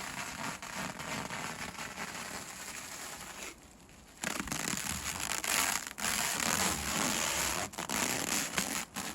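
Plastic film crinkling and rustling as it is handled, with scattered sharp crackles. It drops away briefly about three and a half seconds in, then comes back louder.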